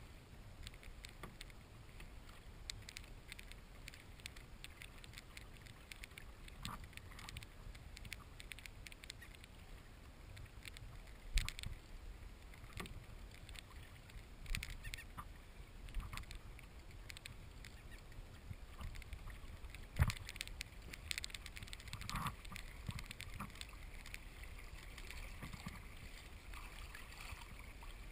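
Water lapping and splashing against the hull of a Hobie Pro Angler 14 kayak, with scattered small knocks and clicks; two sharper knocks stand out about 11 and 20 seconds in.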